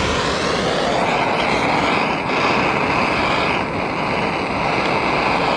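Electric drill running steadily as it bores into a broken muffler bolt in a motorcycle-type cylinder head. Its whine dips briefly twice, about two seconds in and again near four seconds, as the bit loads up.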